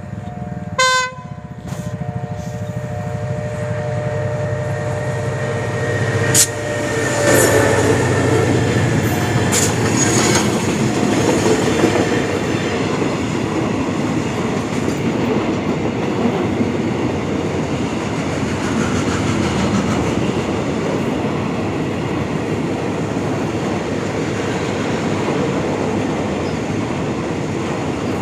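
Diesel train sounding its horn for several seconds, with a sharp loud hit about a second in. Then train wheels rumble and clatter steadily over the rails as the train passes.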